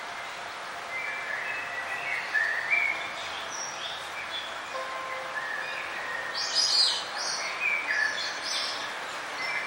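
Several birds chirping and calling over a steady hiss, with a loud cluster of high chirps about six to seven seconds in.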